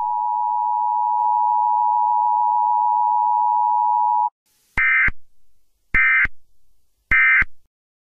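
Emergency Alert System two-tone attention signal held steady for about four seconds, then stopping abruptly, followed by three short bursts of warbling data tones about a second apart: the end-of-message code that closes an EAS alert.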